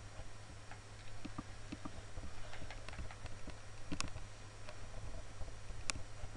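Scattered clicks of a computer mouse, with two sharper clicks about four and six seconds in, over a steady low hum.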